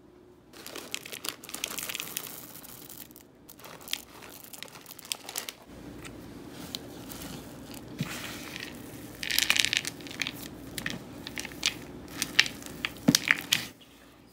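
A silicone spatula folding chocolate chips and chopped chocolate into thick cookie dough in a plastic bowl: crackling, squishing and scraping with sharp clicks, over a low steady hum from about six seconds in. Before that, a few seconds of crunching.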